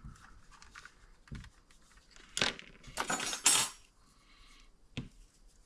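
Clicks, scrapes and rattles of small metal and plastic parts being worked loose and pulled off a power supply during disassembly. Scattered light clicks give way to a louder cluster of rattling about halfway through, and there is a sharp click near the end.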